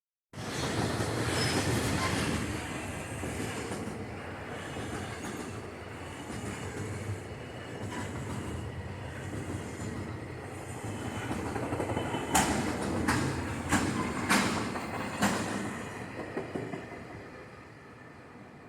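A train running on rails, a steady rumble with about five sharp metallic clanks a little past halfway, then fading away.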